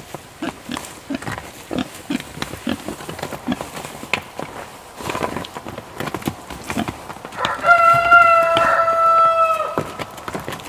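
Pigs grunting in short, low bursts as they root around fresh hay. About three-quarters of the way in, a rooster crows once, a loud call held steady for about two seconds.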